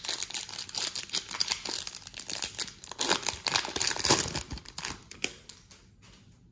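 Foil wrapper of an Upper Deck MVP Hockey card pack being torn open and crinkled as the cards are slid out: a dense run of crackling that dies away about five seconds in.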